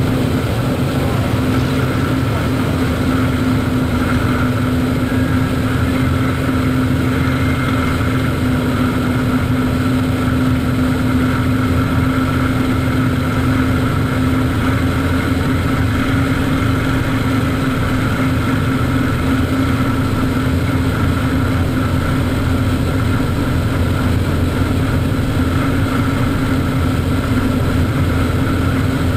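V12 piston engine of a WWII fighter plane running steadily at cruise power, a constant drone with a steady hum, heard from inside the cockpit along with airflow noise.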